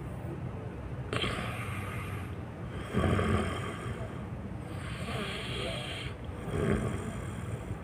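A person snoring in deep sleep, in slow breath cycles about every four seconds, each with a louder low snore, about three seconds in and again near the end.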